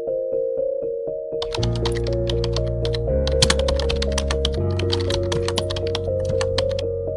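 Background music with a steady beat. About a second and a half in, a bass line joins and rapid, irregular computer-keyboard typing clicks play over the music for several seconds.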